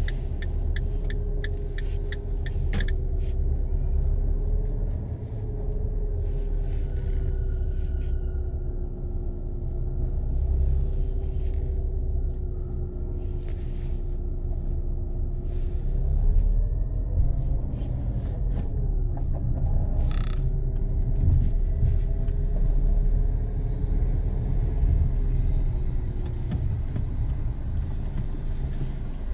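Car engine and road rumble heard from inside the cabin while driving slowly, with a steady engine note that rises and falls gently with speed. A run of quick even ticks sounds in the first few seconds, and a single sharp click about 20 seconds in.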